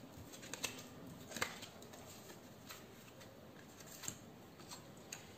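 Tarot cards being gathered up and handled on a glass tabletop: faint, scattered soft clicks and slides of card, the sharpest about one and a half seconds in.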